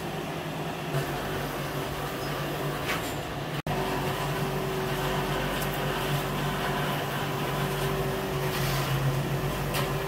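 Steady electric-motor hum of workshop machinery, with a few faint clicks. The sound drops out for an instant about a third of the way in, and a steadier tone joins the hum after it.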